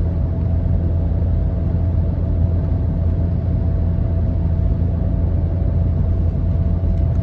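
Steady low rumble of a vehicle on the move, with a faint steady whine above it.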